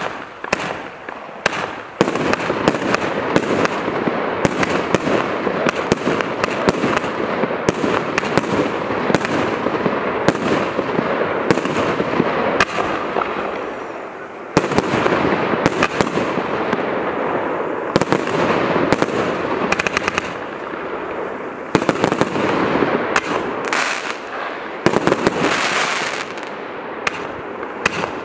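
A Celtic Fireworks X-TREME 165-shot firework cake (20, 25 and 30 mm tubes) firing shot after shot, sharp reports several times a second over a continuous hiss. It starts quieter and builds to the full barrage about two seconds in.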